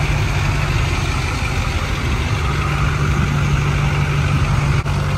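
Chevrolet Silverado pickup race truck's engine idling steadily, close by.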